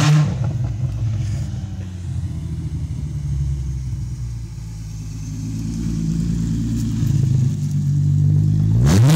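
Straight-piped Volkswagen Jetta GLI exhaust: a quick rev at the start, then a steady low drone that grows louder as the car approaches, and a sharp rev rising in pitch near the end.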